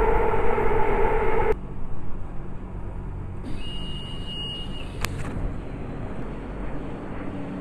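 Istanbul metro train: a loud, steady, pitched whine and rumble inside the carriage that stops abruptly about a second and a half in, then a lower rumble with a high steady tone lasting about two seconds and a sharp click, followed by a steady low rumble.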